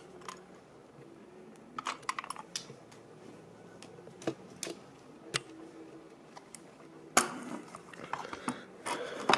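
Handling noise: scattered light clicks and taps as a small plastic HO gauge model locomotive is turned over in the hands, with a louder knock and cloth rustling about seven seconds in.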